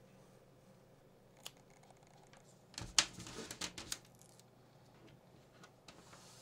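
Adhesive tape being worked by hand: a single click, then a short run of sharp crackling clicks about three seconds in, with a few faint ticks near the end.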